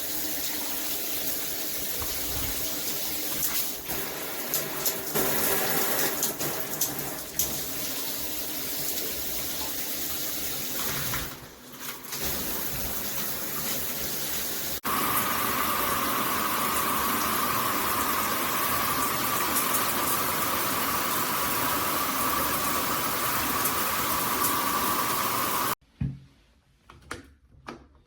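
Shower head spraying water, a steady hiss of spray. About fifteen seconds in it changes abruptly to a louder, brighter spray, and near the end it cuts off sharply, followed by a few light knocks.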